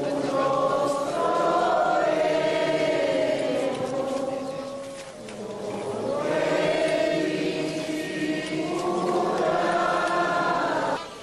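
A crowd of people singing a hymn together in long held notes. There is a brief lull about five seconds in, and the singing cuts off abruptly near the end.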